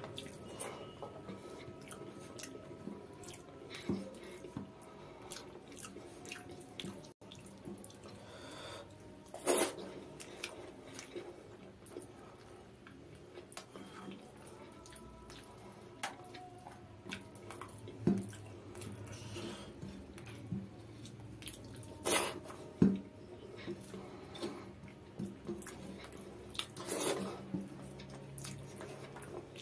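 Close-miked wet eating sounds: fingers mashing rice and dal on a plate and mouthfuls being chewed, with many small wet clicks and a few louder squelches spread through.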